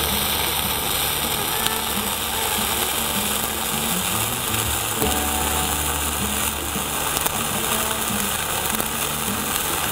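Dual-shield flux-cored welding arc (.045 wire) crackling steadily without a break while a fill bead is run, with a low hum coming and going underneath.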